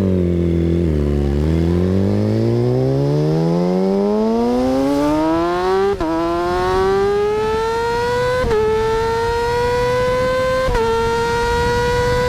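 2008 Yamaha R6's inline-four, on its stock exhaust with link pipe, accelerating hard. After a long, steady climb in pitch, it makes three quick quickshifter upshifts: about halfway through, near two thirds, and shortly before the end. Each upshift is a brief sharp dip in pitch before the engine pulls up again.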